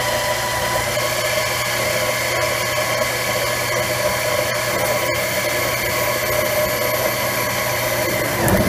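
Grizzly 7x10 mini lathe running steadily under power, its motor and gear train giving a constant whine while the tool feeds into the spinning aluminium stock. A sudden loud clatter comes right at the end.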